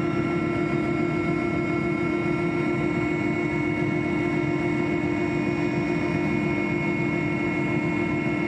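Aircraft engine noise heard from inside the aircraft in flight: a steady drone with several constant high whining tones above it, unchanging throughout.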